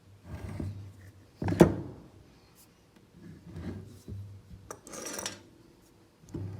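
Short scrapes and rubs of hand tools and metal parts being handled while a car starter motor is unbolted and taken apart, with a sharp knock about one and a half seconds in.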